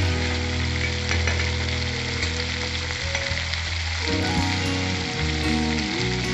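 Ground masala paste sizzling and bubbling in hot mustard oil in a nonstick pan, scraped around with a spatula at first. The masala is being fried down until the oil separates. Background music with low held notes plays underneath.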